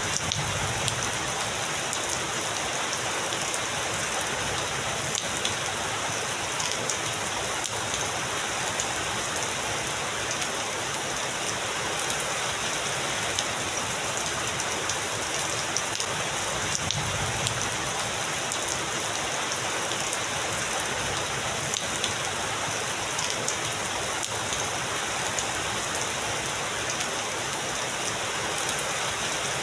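Heavy rain falling steadily: a dense, even hiss flecked with many sharp drop impacts.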